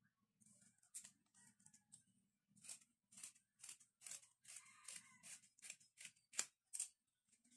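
Scissors cutting through white fabric, a run of faint, crisp snips at about two a second starting about two and a half seconds in.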